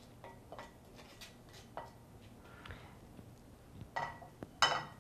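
A metal utensil scraping and tapping inside a stainless steel skillet as the pan drippings are spooned out, in light scattered clicks. Near the end come louder metallic clanks with a short ring as the skillet is set back on the gas stove grate.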